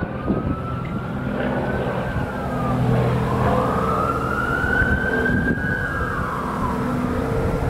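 A siren wailing, its pitch rising slowly for a few seconds and then falling away, over a steady low drone like an idling engine or traffic.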